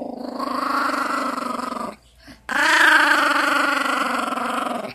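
A small Morkie (Maltese–Yorkshire terrier cross) growling in play while tugging and mouthing: two long, rough growls with a short break about two seconds in, the second louder. It sounds vicious but is play growling.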